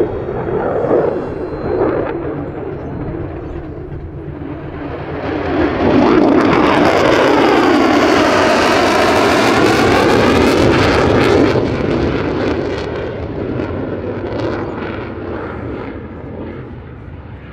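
Lockheed Martin F-35A Lightning II's Pratt & Whitney F135 jet engine passing in a display flyby: the jet noise builds over a few seconds, stays loud for about five seconds with a sweeping, phasing hiss, then dies away slowly.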